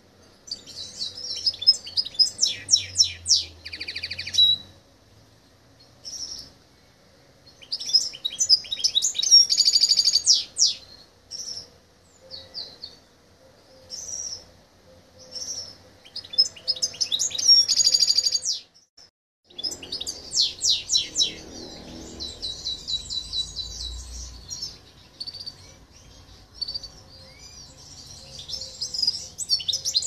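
Silver goldfinch × canary mule singing: bursts of fast, high twittering and trilled phrases a few seconds long, separated by short single chirps.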